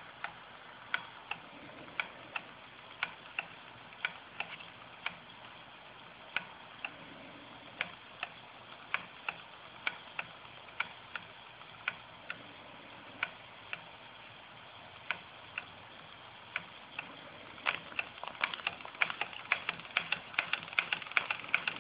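A roughly 110-year-old Schoenner vertical live-steam engine running under steam: a steady hiss with sharp, irregular mechanical clicks, coming much faster and louder for the last few seconds.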